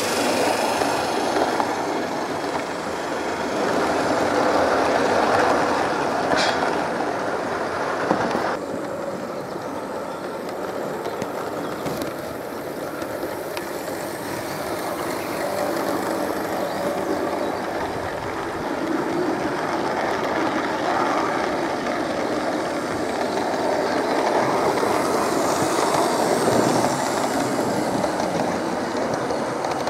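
Large-scale model trains (a model Class 37 diesel hauling coaches and container wagons) running on outdoor model railway track. The wheels rumble and clatter over the rails, swelling and fading as the trains pass, with an abrupt change in the sound about eight seconds in.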